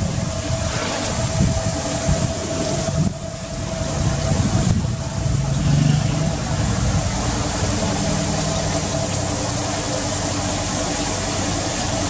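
Pressure washer running steadily, its jet spraying water into a car's engine bay: a steady hiss of spray over a low motor hum.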